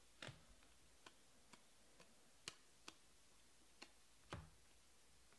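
Faint, irregular clicks of stiff chromium Panini Prizm trading cards being flipped through in the hands, their edges snapping against the stack one card at a time.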